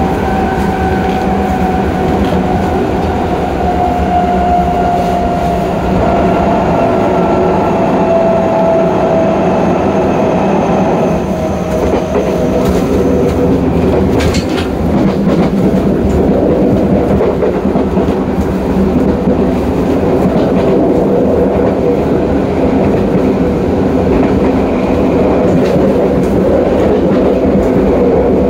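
Tokyo Metro 08 series subway car running at speed, heard from the gangway between cars: a steady rumble and clatter of wheels on rail, with a whine that slides slowly down in pitch over the first dozen seconds. A short sharp clank comes about fourteen seconds in.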